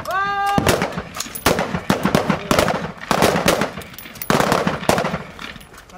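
Rifle fire from a line of several shooters: a ragged string of shots, about three a second at uneven spacing, often overlapping.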